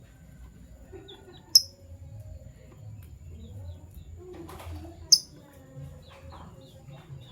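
Fischer's lovebirds chirping: two sharp, loud chirps, one about a second and a half in and another about five seconds in, with fainter short chirps between them.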